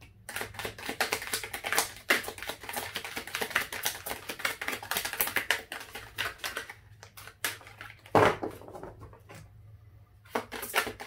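A deck of tarot cards being shuffled by hand: a dense run of rapid card clicks for several seconds, then a pause broken by one sharper snap about eight seconds in, and the shuffling starts again near the end.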